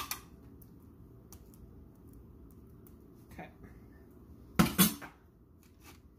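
Kitchen utensils knocking and clinking: a few separate clicks, with one louder clatter about three quarters of the way through.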